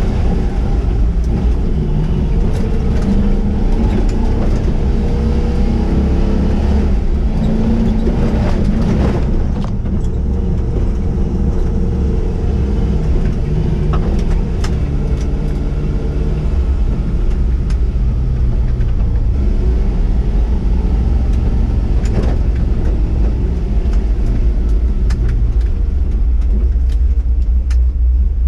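LS-swapped 6.0 V8 of a lifted Chevy truck pulling up a steep off-road hill, its pitch rising and falling with the throttle over a heavy low rumble. Now and then a knock or rattle comes as the truck bounces over rough ground.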